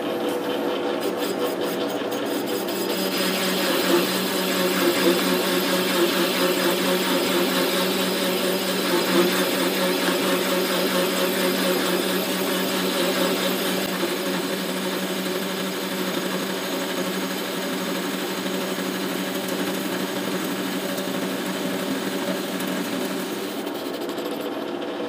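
Metal lathe running steadily while a tool takes a facing cut across the face of a large steel flange: a constant machine hum under the continuous scraping of the cut.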